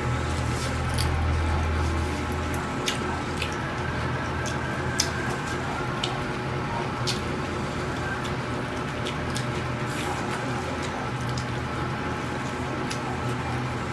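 Wet chewing and mouth sounds of a person eating, with scattered short clicks and smacks over a steady low hum.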